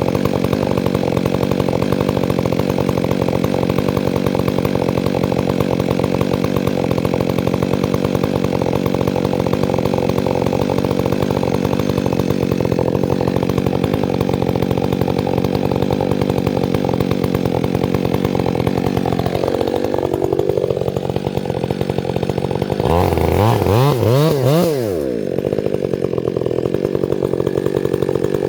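Chainsaw engine running steadily. About two-thirds through, its pitch dips briefly and recovers. Near the end it revs up sharply and drops back before settling into steady running again.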